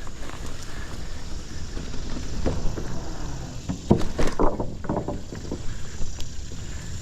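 Mountain bike rolling over a dirt trail, with a steady low rumble from tyres and wind on the microphone. The bike knocks and rattles over bumps, once about two and a half seconds in and in a louder run of jolts from about four to five and a half seconds in.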